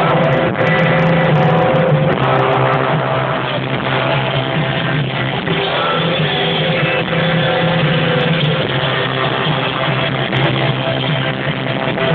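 A rock band playing live through a stadium sound system, heard from within the audience on a phone's microphone: sustained guitar and keyboard chords over a steady beat, loud and muffled.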